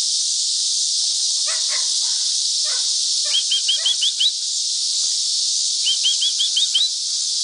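Steady high-pitched chorus of insects. Over it a bird gives two quick runs of about six short rising chirps, one a little over three seconds in and one near six seconds.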